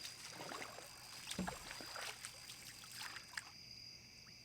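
Scattered faint knocks and rustles, with a dull thump about a second and a half in, that die away after about three and a half seconds. Under them runs a steady high chirring of night insects.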